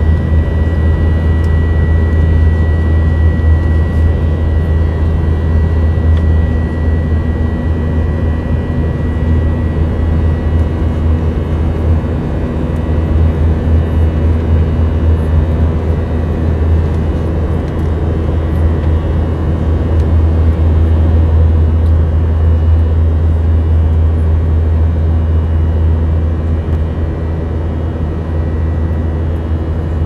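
Jet airliner in flight heard inside the passenger cabin: a steady, deep rumble of engines and airflow with faint even tones over it. A thin high whistle fades away about ten seconds in.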